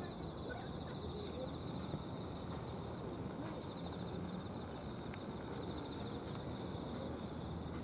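Steady outdoor background: a low, even rush with a continuous high insect trill, finely pulsing, running over it.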